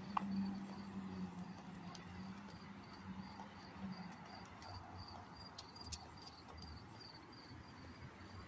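An insect chirping steadily, a high-pitched chirp about three times a second. Under it is a low hum of traffic that fades out about halfway through, and there is a brief squeak just after the start.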